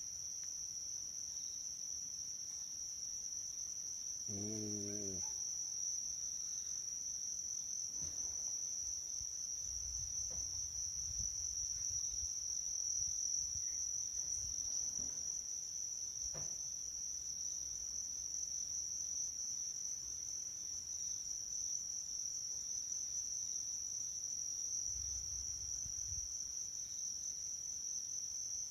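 Crickets trilling in one steady, unbroken high-pitched band, with a faint low rumble rising and falling beneath it twice.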